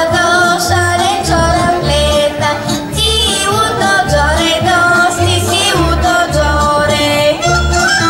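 Bulgarian folk dance music with singing over a steady bass beat of about two beats a second, accompanying a children's folk dance.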